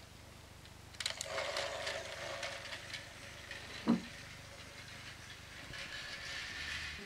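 A battery-powered Plarail toy train runs on plastic track: a steady motor hum with a rattling clatter of wheels over the rail joints. About four seconds in there is a brief, loud falling squeak.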